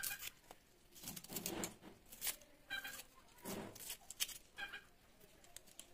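Small onions being peeled by hand with a knife: dry papery skins crackling and tearing in short irregular bursts, with light knife clicks. A few short, pitched animal calls sound in the background.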